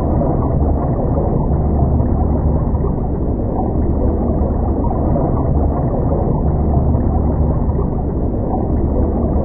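Steady, muffled low rumble of river water picked up by a submerged camera's microphone, with no distinct events.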